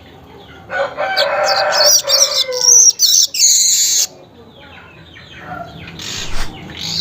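Manyar weaver birds singing a chattering, wheezy song: a loud burst starting about a second in and lasting about three seconds, with a lower, harsher call mixed into its first part, then softer chirps that build again near the end.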